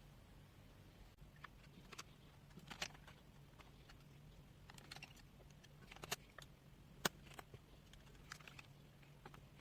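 Faint, scattered clicks and taps of hands handling the opened plastic case and circuit board of a multimeter, over a low steady hum. The sharpest click comes about seven seconds in.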